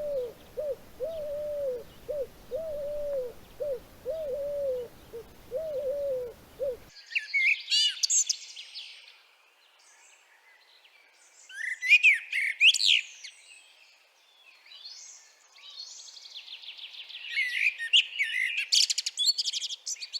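Bird calls from two spliced recordings: first a steady series of short, low, arched calls, about two to three a second. After an abrupt cut about seven seconds in, small songbirds give high chirps, whistles and fast trills.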